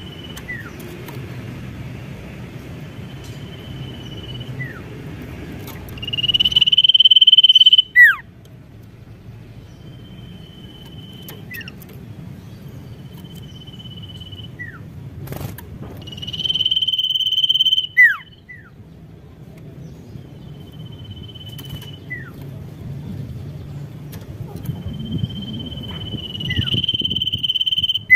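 Sirtu (cipoh, common iora) songbird calling: long, level, high whistles, each followed by a quick falling note. The calls come every few seconds, and three louder ones fall about a quarter, a half and near the end of the way through.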